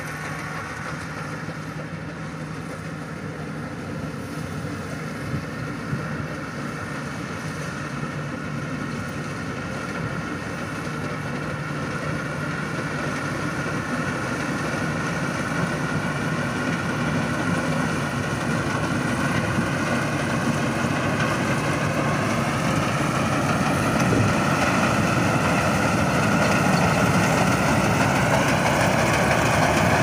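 Rice combine harvester running steadily as it cuts and threshes rice, growing gradually louder as it comes closer.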